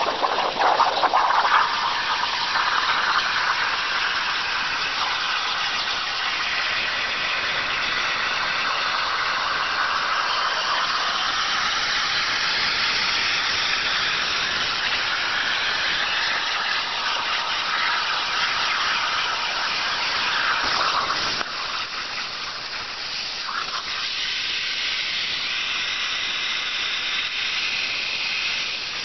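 Plasma cutter arc hissing steadily as the CNC torch cuts 1/8-inch steel plate above a water table. About two-thirds of the way through, the hiss drops to a quieter, thinner hiss.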